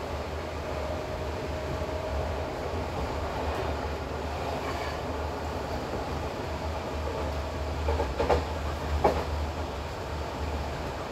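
Passenger train running at speed, heard from a carriage window: a steady rumble and rail noise, with a few sharp clacks of the wheels over rail joints about eight and nine seconds in.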